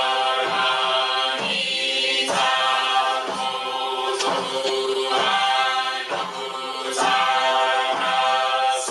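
A group of voices chanting together in unison, unaccompanied, in a continuous flow of sung syllables.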